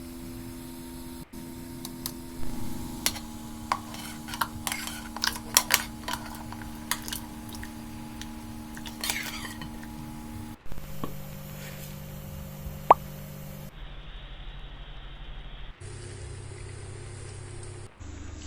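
Cooking sounds: a quick run of small clicks, clinks and plops, as of pieces dropped into a pot and utensils touching it, over a steady hum. The background changes abruptly several times where short clips are joined, and a single sharp click comes near the end.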